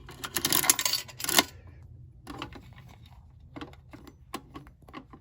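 A burst of rattling clatter from the contents and mechanism of a coin-operated prize vending machine as the prizes are shifted about, followed by scattered sharp clicks.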